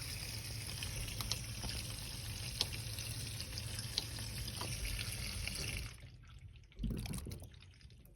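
Bosch dishwasher drain pump running with water rushing out through the drain, now flowing freely after a food blockage was cleared. The rush stops about six seconds in, and a brief louder noise follows shortly after.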